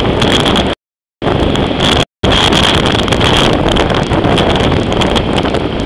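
Strong tropical-storm wind buffeting the camera's microphone: a loud, steady rush of noise. The sound cuts out completely twice, for about half a second just under a second in and again briefly around two seconds in.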